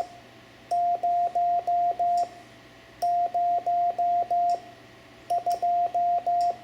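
Morse code numbers sent as a single steady beep: 'zero' (five dahs), 'zero' again, then 'two' (dit-dit-dah-dah-dah), ending the practice string 1002.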